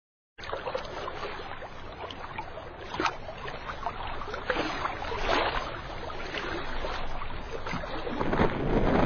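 Water lapping and splashing around boats, with wind. It cuts in suddenly just after the start and grows louder toward the end.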